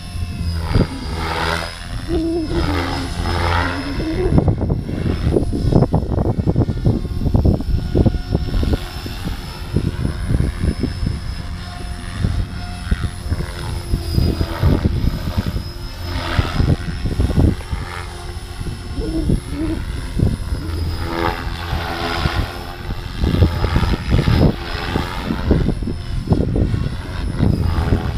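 Electric RC helicopter in flight, a Gaui X5 stretch with 550 mm main blades and a Scorpion HKIII-4035 500kv motor on 12S: rotor blade whoosh and motor whine that rise and fall in pitch as it swings back and forth overhead. A gusting low rumble runs underneath.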